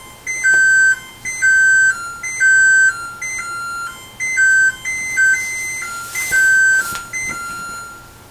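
LG electric range's timer-end alert: an electronic chime playing a short tune of clean beeped notes, stepping between a few pitches, that runs for about eight seconds and signals the timer has finished.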